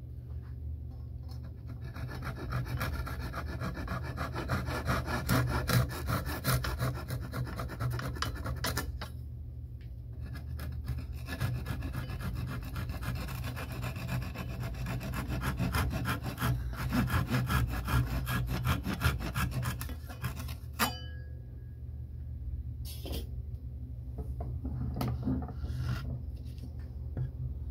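Japanese double-edged pull saw (Hachiemon ryoba) cutting a glued-in patch of wooden matchsticks flush with the wood in quick rasping strokes. It comes in two long spells of sawing with a short break between, then a sharp click and a few scattered scrapes near the end.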